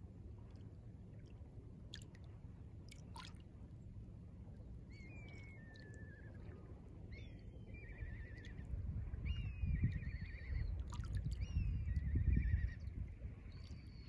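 Small waves lapping and washing at the shore of a calm bay, swelling louder in the second half. Over them, birds call with short gliding notes and quick trills.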